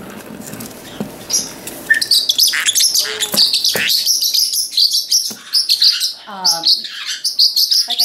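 Pet parrots chirping and chattering. The first two seconds are quieter, then a dense run of high chirps starts, with lower squawky calls from about six seconds in.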